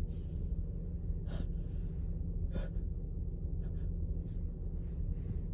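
A woman's short, sharp inward breaths, several of them about a second apart: the hitching gasps of a sneeze building up.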